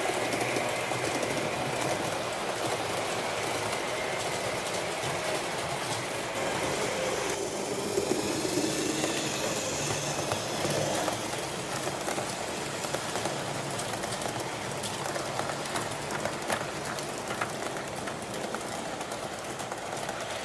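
A train rolling along the track, its wheels ticking over the rail joints; the sound changes abruptly about seven seconds in.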